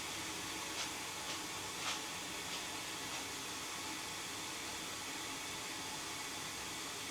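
Steady hiss with a few faint clicks in the first three seconds.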